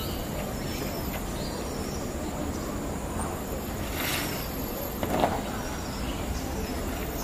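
Steady outdoor background noise with a low hum, and a brief faint sound about four seconds in and again about five seconds in.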